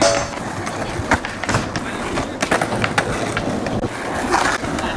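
Skateboard wheels rolling over rough asphalt, broken by a series of sharp wooden clacks of boards popping and landing.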